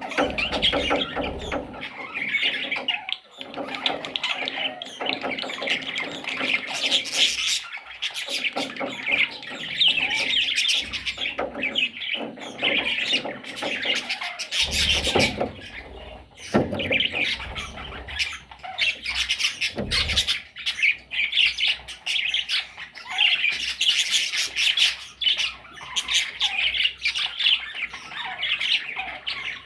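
Pet parrots chattering and squawking continuously, many overlapping calls, with a few short knocks scattered through.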